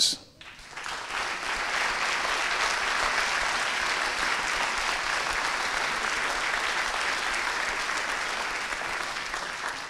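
Audience applauding in a hall, the clapping building up about a second in and holding steady before thinning out near the end.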